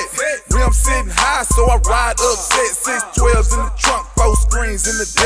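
Hip hop music with a rapped vocal over deep bass notes and a repeating short high note.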